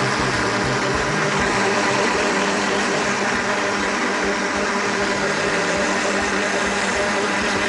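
Countertop blender motor running steadily at speed, beating eggs and sugar into a pale, frothy cake batter.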